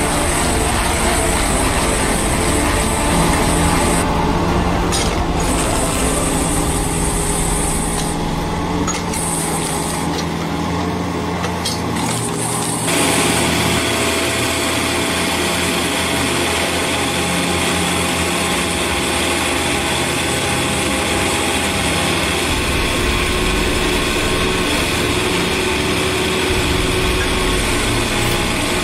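Mini excavator's engine and hydraulics running under load as a hydraulic screw-type stump-grinding attachment bores into tree stumps, chewing the wood into chips. The machine noise is steady and shifts abruptly about four seconds in and again about thirteen seconds in.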